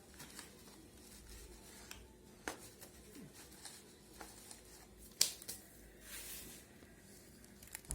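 Quiet handling of salted lemon quarters being pressed into a jar: a few light clicks and knocks, the sharpest about five seconds in, with a short rustle after it.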